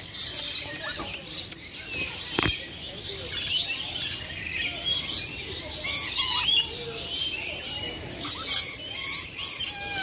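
Rainbow lorikeets chattering: a dense stream of short, shrill, high-pitched chirps and squeaks, many sliding in pitch.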